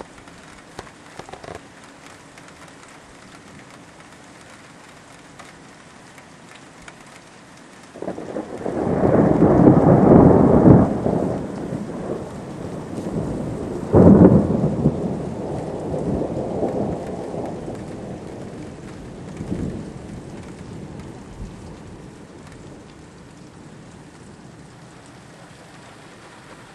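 Thunderstorm: steady rain falling, with a loud rumble of thunder breaking in about a third of the way through, then a sharp thunderclap a few seconds later that rolls on in fading rumbles and dies away.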